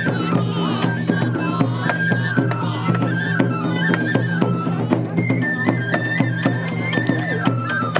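Live shishimai lion-dance music: a bamboo flute plays a melody of held, stepping notes over a steady run of drum beats.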